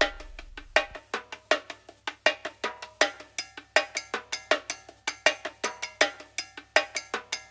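Background music: a light percussive track with a steady tapping beat, about four taps a second, over short pitched notes; a low bass tone fades out in the first second.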